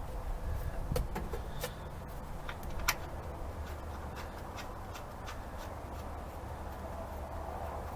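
Scattered light clicks and taps of metal parts being handled as a brake master cylinder is set onto its mounting studs, the sharpest about one second and three seconds in, over a low steady hum.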